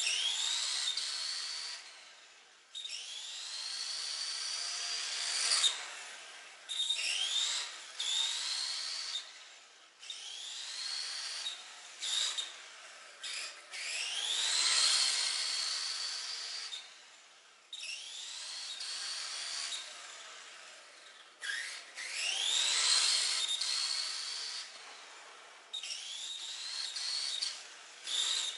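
Tamiya TT-01 RC car's Tamiya Light-Tune brushed electric motor whining in repeated bursts of a few seconds. Each burst rises in pitch as the car accelerates and falls away as it slows, and the whine cuts off sharply between runs.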